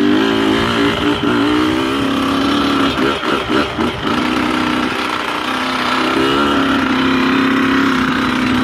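Small dirt bike engine running under way at a mostly steady pitch, with a few quick rev changes about three to four seconds in.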